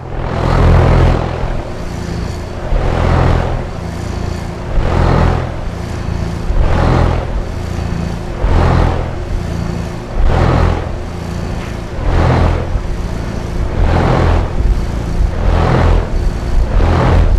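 HVAC system running: a steady low machine hum with a whoosh of air that swells and fades about every two seconds.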